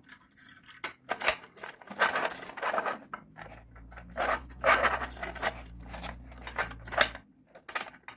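Keys jangling on a ring while a cross-shaped key is pushed into a garage lock's cylinder and turned, with metallic clicks and rattles from the lock and a low rumble in the middle as its bolts slide. The lock is working normally.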